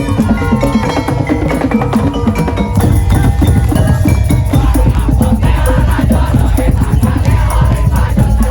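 Madurese tong-tong music: an ensemble of wooden slit drums and drums playing a busy, steady beat under a melody line.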